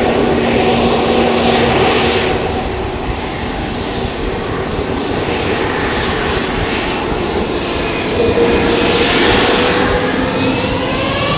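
Airplane engines running loud and steady, with tones that rise in pitch near the end.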